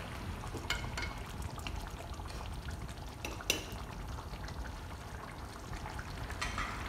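Chicken curry simmering and bubbling in a pan on the stove, with a handful of short sharp pops or clicks spread through.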